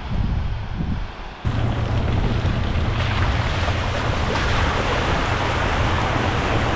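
Steady rushing of a 77-foot waterfall, an even wash of falling water, with wind buffeting the microphone in the first second or so before an abrupt cut.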